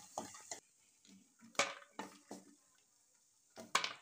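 Spatula scraping and knocking against a kadai as fried bori are stirred and scooped out of hot oil: a few sharp scrapes, the loudest about one and a half seconds in and near the end. The oil sizzles faintly at first.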